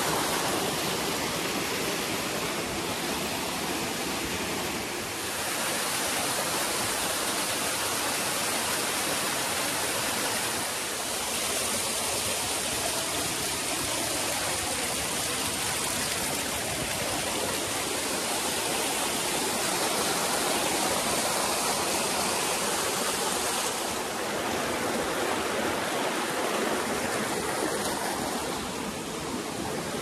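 Mountain stream cascading down small waterfalls over rocks: a steady rush of water.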